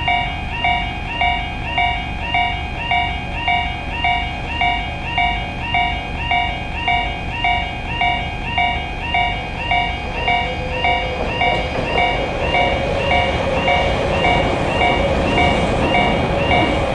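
Japanese level-crossing alarm ringing steadily, about two dings a second. From about eleven seconds in, a steady hum and a train's running noise rise under it as a train approaches.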